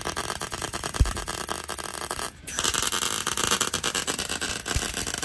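MIG welder arc crackling steadily while tack-welding the distributor's mechanical advance weights to the reluctor plate, locking out the advance curve. The arc breaks off briefly about two and a half seconds in, then strikes again for a second tack.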